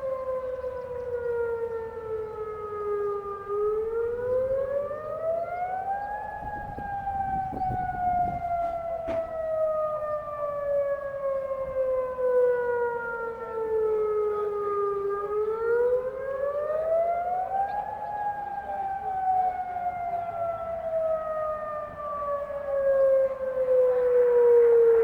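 Federal Signal Modulator 6048 electronic outdoor warning siren sounding the Attack signal: a wailing tone that climbs quickly for about three seconds, then slides slowly down for about nine, twice over.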